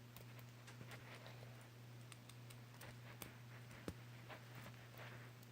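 Faint, irregular clicks of a fidget spinner's small parts, its bearing and snap-on caps, being handled in the fingers, one click sharper just before the 4-second mark. A steady low hum runs underneath.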